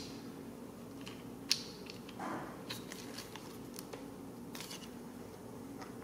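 Faint clicks and small handling noises as a throttle cable's crimped ferrule is worked into a plastic ASC actuator housing by hand, with one sharper click about a second and a half in.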